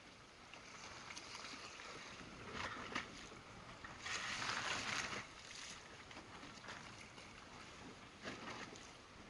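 Choppy sea water sloshing and splashing against the hull of an inflatable boat, with a louder splash about four seconds in.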